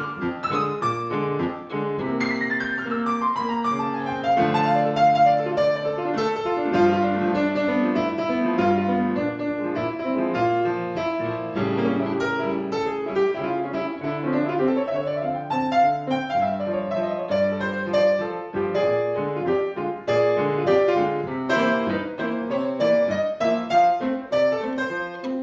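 Violin and grand piano playing a classical-style duet: piano chords and runs under a bowed violin melody, with a long downward slide in the violin line about two seconds in.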